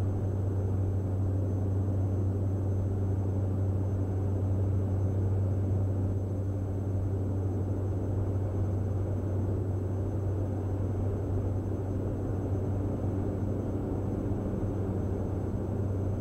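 Cabin drone of a Diamond DA42 NG's twin turbo-diesel engines and propellers in flight: a steady low hum with a muffled rumble and nothing bright above it.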